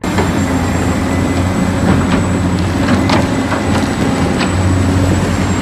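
Large Caterpillar hydraulic excavator running steadily at a dig site, its diesel engine giving a low steady hum, with several sharp knocks from the working machine.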